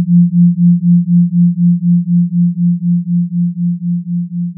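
A pure 174 Hz tone, built as a 172 Hz and a 176 Hz sine tone for a 4 Hz theta binaural beat, pulsing about four times a second as the two tones beat. It slowly fades out.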